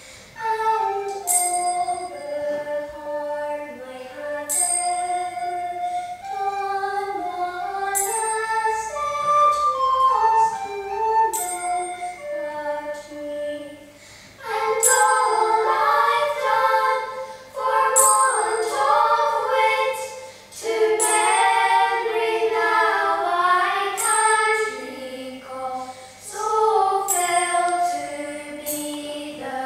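Young girls singing a folk song together, their voices fuller from about halfway through. A bright, bell-like metal strike rings about every three seconds over the singing.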